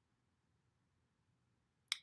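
Near silence: quiet room tone, with one brief sharp click near the end just before the narrator speaks again.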